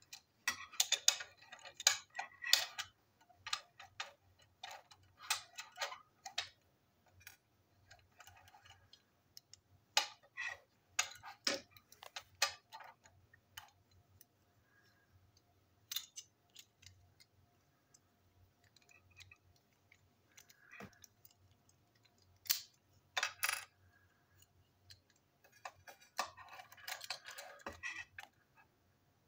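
Small screwdriver and plastic parts of a toy train clicking and scraping as it is taken apart: scattered sharp clicks and short scratchy scrapes in several clusters, with quieter gaps between.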